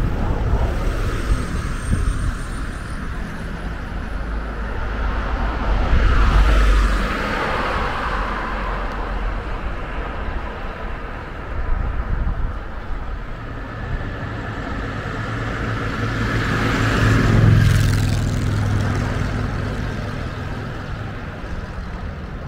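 Motor vehicles passing on the road one at a time over a steady traffic rumble. One swells up and fades about six seconds in, and a louder one, with a low engine hum, passes near eighteen seconds.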